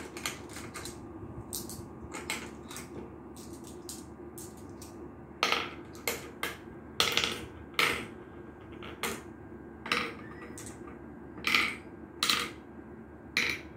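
Small round playing pieces dropped one by one into the pits of a wooden Gurpale board (a mancala-type sowing game), clicking sharply at irregular intervals. The clicks grow louder from about the middle, over a steady low hum.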